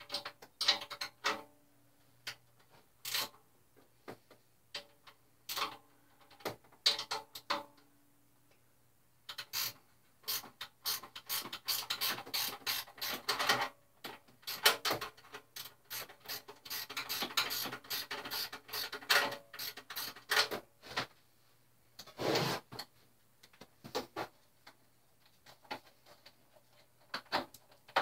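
Socket wrench and metal fittings working on a Suzuki Hayabusa's exhaust mounting bolts: irregular runs of quick clicking and clinking, sparse at first and densest through the middle, with one dull knock near the end.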